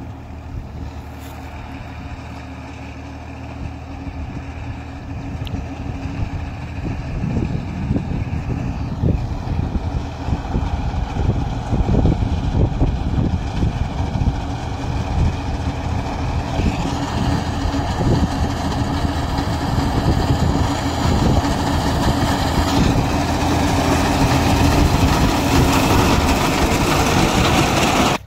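Tractor diesel engine running steadily while driving a front-mounted reaper binder through standing wheat, growing louder as it comes closer.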